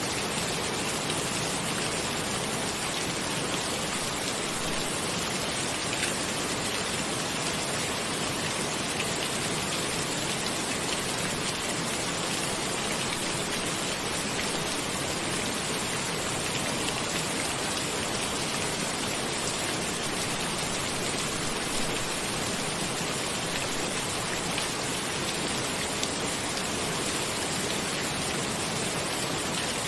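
Steady rain, falling evenly with faint scattered drop ticks and no change in strength.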